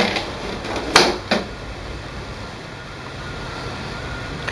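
Plastic click and a smaller knock from the HP OfficeJet 5230 printer's front access cover as it is lifted open, about a second in, followed by a steady low hum.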